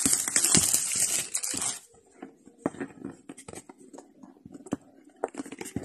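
Packaging being handled while a smartphone box is opened: a rustling, crinkling noise of plastic wrap and cardboard for about two seconds, then scattered light clicks and taps of the box and its contents being handled.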